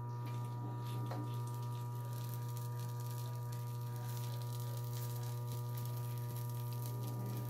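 Steady low electrical mains hum, with a faint even hiss above it.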